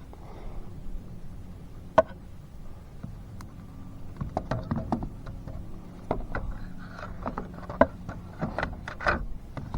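Scattered light clicks and knocks of small parts being handled in a car's engine bay, with a sharp click about two seconds in and a busier run of clicks in the second half, over a faint steady low hum.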